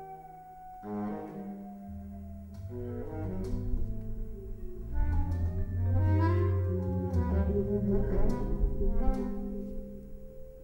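Instrumental music: held pitched notes over a low bass line, with sharp struck accents, swelling louder toward the middle and easing off near the end.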